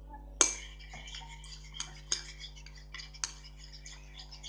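A spoon clinking and scraping against a bowl while stirring glue: one sharp clink about half a second in, then irregular lighter taps, with louder clinks around two and three seconds in.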